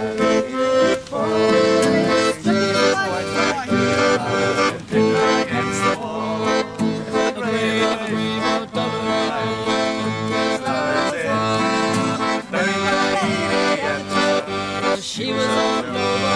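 Accordion playing a tune, with held low notes under a moving melody.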